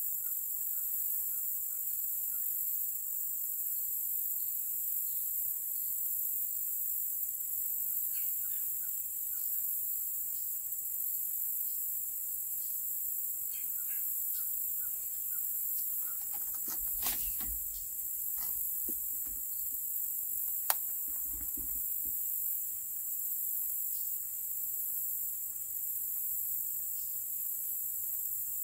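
Steady high-pitched chorus of crickets and other insects, with faint short chirps over it. Partway through come a few low knocks and clicks, the sharpest a single click about two-thirds of the way in.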